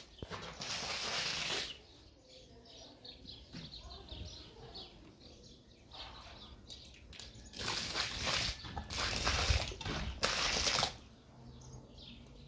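Birds chirping faintly, broken by several loud bursts of rushing noise, one early on and three close together near the end.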